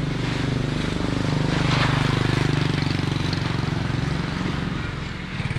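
Small motorcycle engine running steadily at low revs, a little louder around two seconds in.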